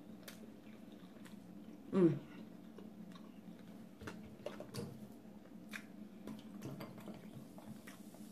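Close-up chewing of food, with small wet mouth clicks, over a steady low hum. About two seconds in there is one short vocal sound that falls in pitch.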